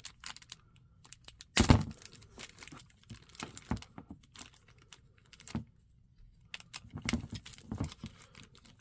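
Plastic wrap around a toy train boxcar crinkling and rustling as it is handled and worked open, in irregular small clicks and crackles, one louder crackle a little under two seconds in.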